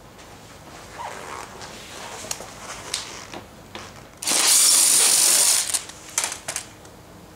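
Cordless driver running for about a second and a half, backing out a #2 Phillips screw from a scooter's plastic side cover. Handling clicks and knocks come before it, and a few sharp clicks follow.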